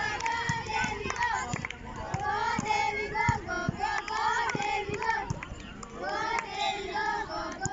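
Many girls' high voices shouting and cheering at once, overlapping and chant-like, from players and spectators during a volleyball rally. A few sharp slaps are heard as the volleyball is hit.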